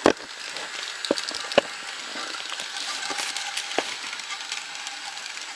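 Battery-powered toy N gauge train running on plastic track: a steady whirring hiss of its small motor and wheels, with a few sharp clicks.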